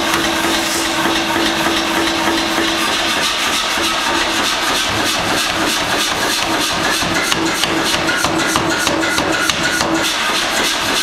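DeMoor mechanical power hammer forging a glowing bar of hot steel with rapid, even blows, over a steady hum.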